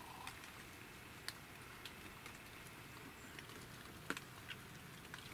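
Faint rain pattering, with scattered single drops ticking sharply.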